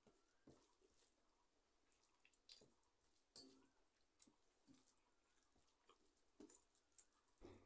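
Faint, scattered wet squishes and clicks of fingers mixing and kneading rice in a steel plate, mixed with soft chewing and mouth sounds.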